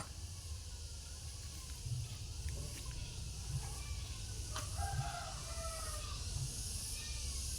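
Faint chicken calls, a few short arched clucks over a steady low hum, with a couple of light knocks.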